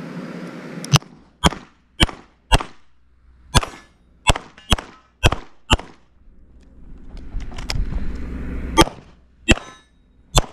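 CZ SP-01 Shadow 9 mm pistol firing a timed course of fire: about a dozen sharp shots in quick strings, roughly half a second apart. A pause of about three seconds in the middle holds only a low rumble before the shooting resumes.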